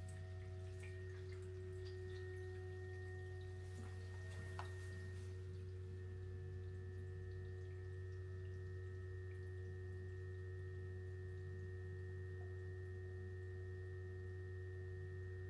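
Ventilation fans of two GoodWe Lynx Home D 5.0 home storage batteries running while the batteries charge or discharge: a steady, unpleasant low hum with a few steady higher whining tones over it, and one faint click about four and a half seconds in. The owner measures the noise at 43 to 45.5 dBA, above the 35 dBA in the datasheet.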